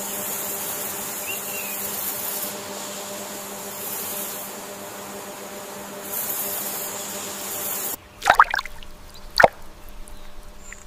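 Steady ambient hiss, then, after a sudden change, two short water plops near the end, like drops falling into still water; the second plop is the sharper and louder.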